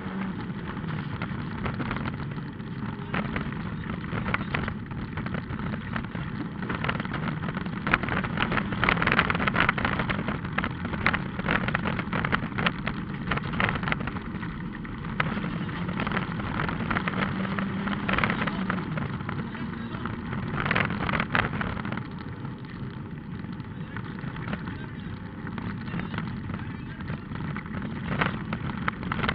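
Rally car engine running hard on a gravel stage, its revs rising and falling, with many sharp clicks and rattles of gravel and stones striking the car, heard from inside the car.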